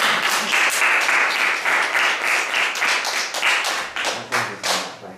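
Applause, many quick hand claps in a dense patter, greeting a correct quiz answer; it dies away near the end.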